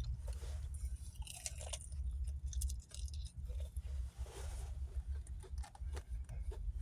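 Close-up chewing of shrimp from a fried seafood platter, irregular crunches and wet mouth clicks. A low steady rumble runs underneath.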